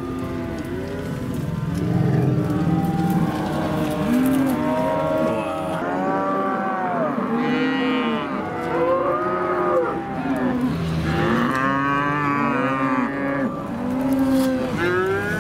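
A herd of cattle mooing and bawling as it is driven past, many calls overlapping and following one another without a break; the animals sound not happy.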